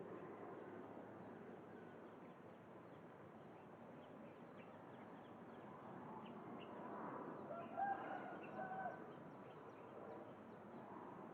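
A bird calling in a few short pitched notes about two-thirds of the way through, over faint outdoor background with small high chirps.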